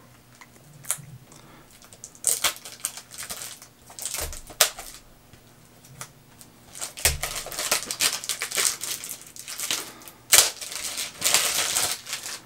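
Plastic shrink-wrap being peeled off a Blu-ray case and crumpled in the hands: irregular crinkling and rustling, with a few sharp clicks.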